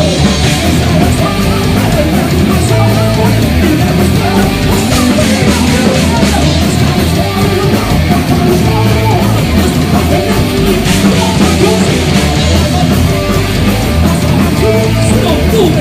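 Live heavy metal band playing: electric guitars, bass and drums, loud and unbroken.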